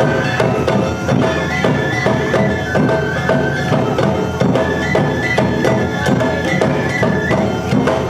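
Awa-odori hayashi band playing: high shinobue flutes hold a steady melody over a brisk, even beat of drums and a clanging hand gong.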